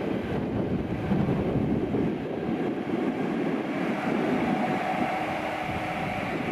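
Airbus A340-600's four Rolls-Royce Trent 500 turbofans at take-off thrust as the jet rotates and lifts off: steady, rumbling jet noise, with a higher engine whine coming through over the last couple of seconds.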